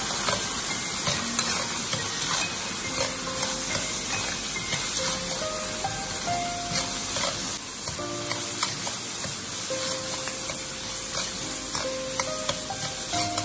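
Green peas sizzling in hot lard in a stainless steel wok, stirred with a metal ladle that scrapes and taps the pan now and then. Soft background music plays with a few short held notes.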